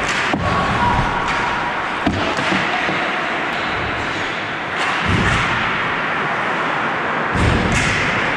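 Ice hockey play: skates scraping over the ice, with sharp clacks of sticks and puck and a few heavier thuds, the loudest about five and seven and a half seconds in.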